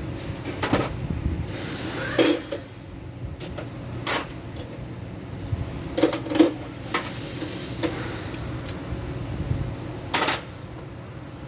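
Scattered metallic clinks and knocks of tools and parts being handled during work on an automatic transmission pan, about eight in all, unevenly spaced, with the loudest a little past halfway and near the end. A steady low hum runs underneath.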